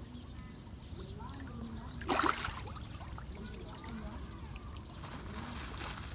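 Pond water splashing and sloshing as a dense crowd of fish churns at the surface, with one louder splash about two seconds in.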